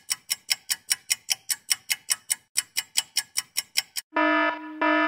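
Countdown-timer sound effect: fast clock ticks at about five a second, ending about four seconds in with a buzzy electronic beep in two parts as the time runs out.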